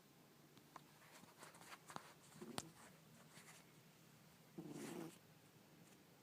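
A sleeping cat snoring faintly: a short snore about two and a half seconds in and a longer one near five seconds, with a few small clicks.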